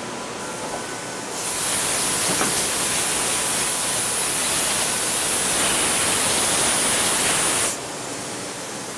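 Compressed-air blow gun hissing steadily as it blows chips and coolant off the workholding fixtures inside a CNC machining center. It starts about a second and a half in and cuts off sharply near the end, over the steady hum of the machine shop.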